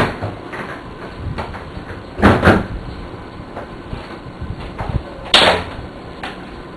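Vacuum cleaner running steadily, with two quick knocks about two seconds in and another, sharper knock about five and a half seconds in, of the kind a door or the vacuum nozzle bumping against one makes.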